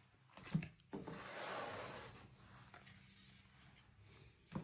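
Trading cards being handled on a tabletop: a tap about half a second in, then a rubbing, sliding sound of cards against cards that fades over a couple of seconds, and another tap near the end.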